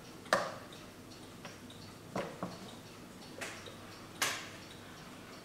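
1880s Winterhalder & Hofmeier triple-fusee mantel clock ticking steadily, about three ticks a second, while its wooden case is turned on a glass tabletop. The case gives five sharp knocks, the loudest about a third of a second in and near the end.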